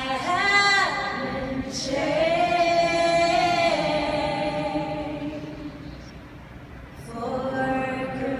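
Many voices singing a slow melody together in long held phrases, a crowd singing along, with a short break about a second in and a quieter lull before it picks up again near the end.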